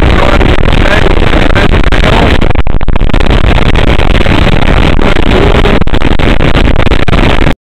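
Honda motorcycle riding along at road speed: very loud, steady engine and wind noise. It cuts off suddenly near the end.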